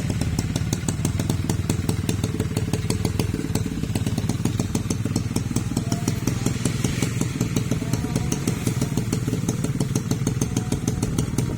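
1997 Suzuki Tornado GX motorcycle engine running steadily at an even idle, a fast, unchanging beat of exhaust pulses.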